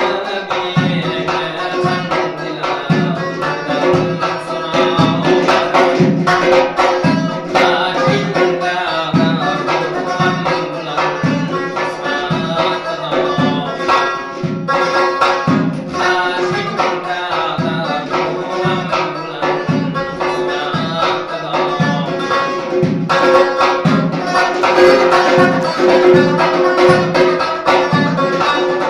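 A doira frame drum hand-beaten in a steady rhythm of about two strokes a second, under a long-necked lute strummed quickly with held drone notes: Uzbek folk music.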